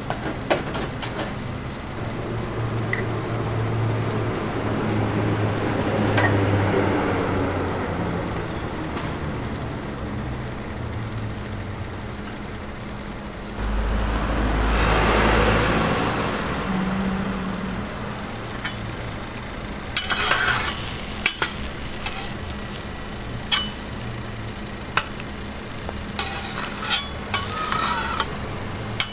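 Beaten egg and cheese sizzling in square metal frames on a flat-top griddle, with a brief low rumble about halfway through. In the last third a metal spatula clicks and scrapes on the griddle plate.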